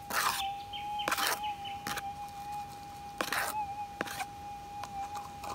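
Minelab GPX 6000 metal detector's steady threshold hum, which wavers slightly now and then. Over it come about five short swishes of soil shifting in a plastic scoop as the scoop is waved over the coil to check for the target.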